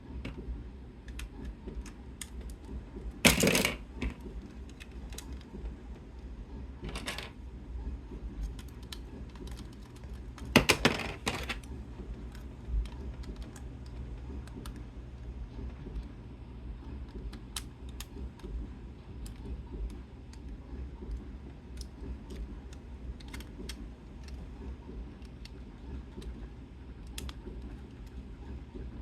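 Scattered light clicks and taps, as of small hard objects being handled, with three louder noisy bursts about three, seven and eleven seconds in, over a steady low hum.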